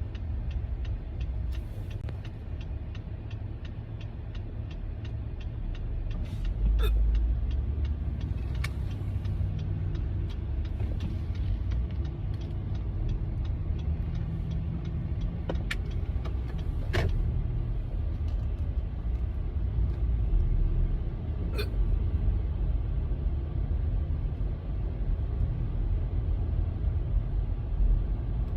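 A person hiccupping spontaneously: five short, sharp hiccups at irregular intervals over a steady low rumble.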